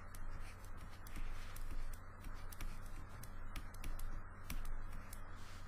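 Pen stylus tapping and scratching on a drawing tablet while sketching, making irregular light clicks over a steady low electrical hum.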